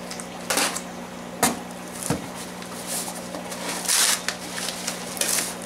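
Small cardboard box being cut and pried open by hand: a handful of separate scrapes, rustles and crackles of cardboard and packing tape, the longest a little before the end. A steady low hum runs underneath.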